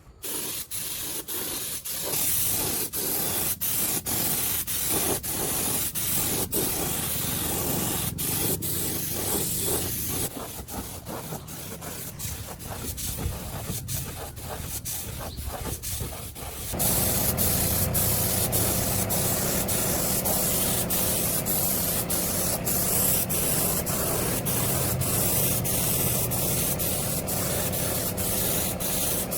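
Steady hiss of compressed air spraying, broken by many brief gaps, growing louder about two-thirds of the way through.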